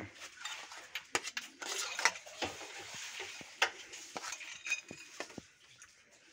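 Metal cutlery clinking and scraping against plates and a metal frying pan as people eat: scattered short clicks and brief scrapes that thin out near the end.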